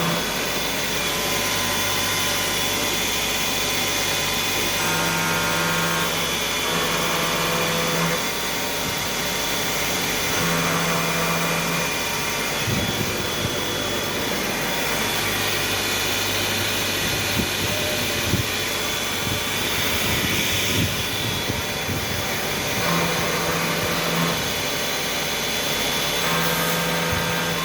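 Doosan T 4000 CNC machine running: a steady whirring hum and hiss, with short steady whining tones of a second or so starting and stopping several times, and a few light knocks in the middle and near the end.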